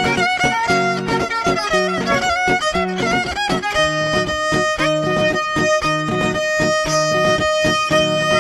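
Violin music over a rhythmic low plucked accompaniment. The violin plays a quick melody, then holds one long note from about four seconds in.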